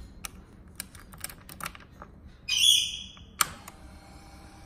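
Light clicks and jingles of the ignition key being turned on a 2009 Ducati 1198 S, then a loud high chirp about half a second long. After a sharp click about three and a half seconds in, a steady electric whir runs for about two seconds as the ignition comes on, typical of the fuel pump priming before a start.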